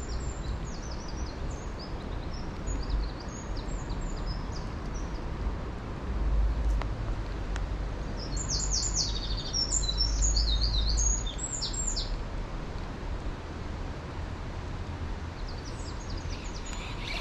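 Small songbird singing in quick runs of high chirping notes, faint at first and louder for a few seconds in the middle, over a steady low rumble that swells in the middle.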